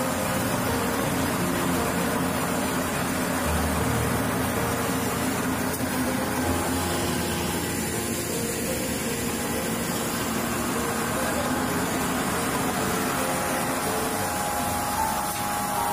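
Paper napkin folding machine running steadily: continuous machine noise with a low hum underneath.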